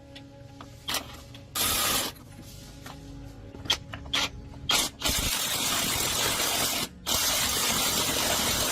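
Pressurised spray hissing: a short burst, then two long bursts of a couple of seconds each with a brief break between them, with small clicks and knocks in the gaps.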